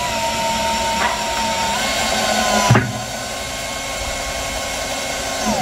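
Electric hand planer running on wood to smooth the surface: a steady motor whine with the rasp of cutting, a sharp knock about two and a half seconds in, and the motor winding down near the end.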